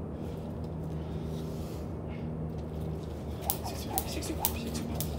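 Jump rope slapping a concrete floor on each turn as skipping starts again about three and a half seconds in, sharp smacks about twice a second. A steady low hum runs underneath.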